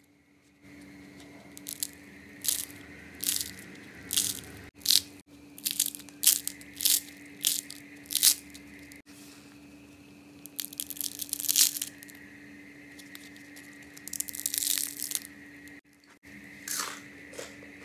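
Crisp deep-fried potato spirals, made from mashed potato and cornstarch, crunching and crackling as they are broken apart by hand. A quick run of sharp cracks comes first, then a few longer crackling tears, over a faint steady hum.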